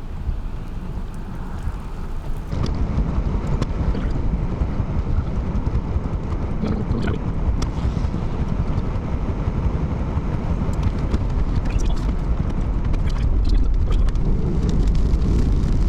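Steady rumble of road and wind noise from a car being driven, stepping up in loudness about two and a half seconds in, with scattered light ticks over it.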